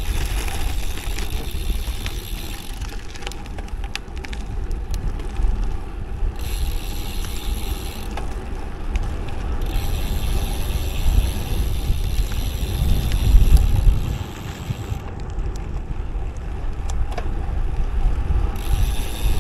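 Road bike freewheel ticking rapidly while coasting downhill, over a steady wind rumble on the microphone. The ticking drops out for a few seconds at a time, then picks up again.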